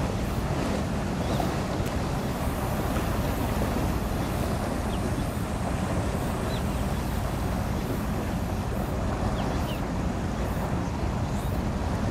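Steady wind buffeting the microphone over water noise and a low rumble, with a few faint short high chirps.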